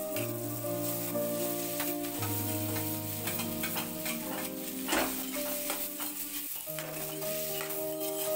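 Chopped capsicum, tomato, onion and cabbage sizzling in hot oil in a kadai as they are tipped in and stirred with a spatula, with a sharp knock about five seconds in. Soft background music with held notes plays underneath.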